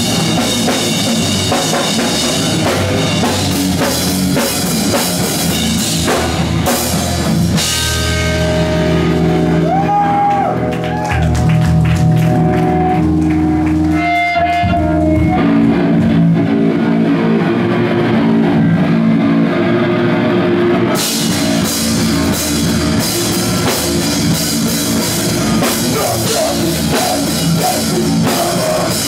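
Live rock band playing loud, with drums, cymbals and electric guitar. About a quarter of the way in the drums drop out for a stretch of held, ringing guitar chords, and the full band with drums and cymbals comes back in about two-thirds of the way through.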